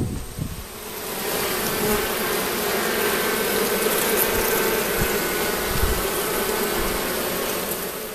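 A mass of honey bees humming in an open hive's brood box: a steady, dense buzz that swells about a second in and holds.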